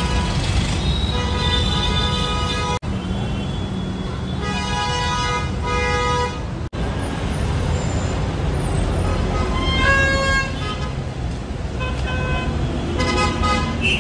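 Busy road traffic with a steady low rumble, and vehicle horns honking several times in drawn-out, pitched blasts.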